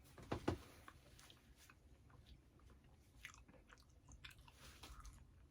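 A person chewing pizza with the mouth close to the microphone: soft, faint bite and chew clicks, with a couple of louder bites about half a second in.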